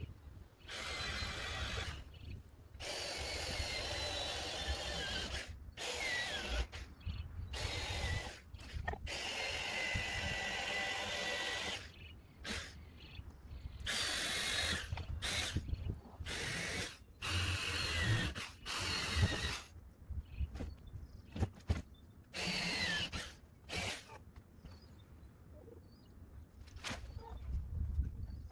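Corded Sawzall reciprocating saw cutting up a storm-felled tree, run in a series of bursts of a few seconds with short pauses between, its whine falling in pitch during some cuts. The cutting stops about four seconds before the end.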